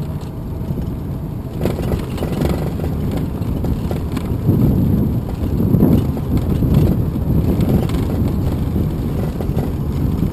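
Rumble of a small battery-powered fire-engine replica rolling along an asphalt lane: tyre and road noise mixed with wind buffeting the microphone, with no clear motor whine. A few light knocks come about two seconds in.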